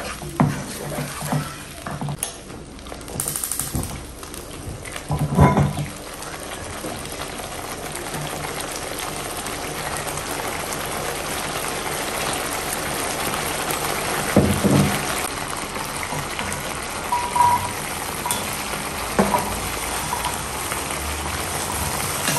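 Blended chili, shallot and garlic spice paste frying in a pan, a steady sizzle that grows gradually louder as the paste starts to bubble. A wooden spatula knocks and scrapes against the pan a few times.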